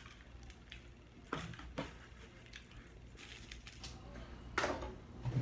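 Close-up eating sounds: a few scattered wet mouth smacks and squishy chewing noises, the loudest about four and a half seconds in.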